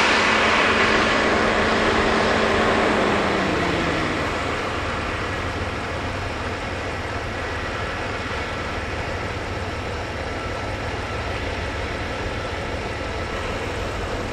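A road vehicle passes and moves away, its engine tone dropping in pitch as its noise fades over the first few seconds, leaving steady traffic noise.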